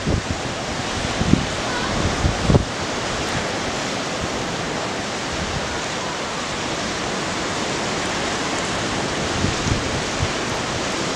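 Ocean surf breaking and washing through whitewater over a rocky shore, a steady rushing, with a few brief wind buffets on the microphone in the first few seconds.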